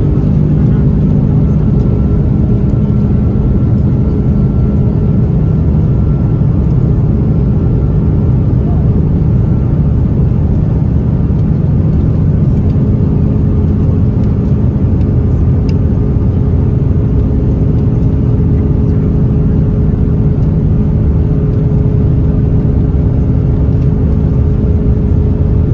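Airbus A330-200's jet engines at high thrust during takeoff, heard inside the cabin as a loud, steady rumble with a constant low hum and a faint higher whine.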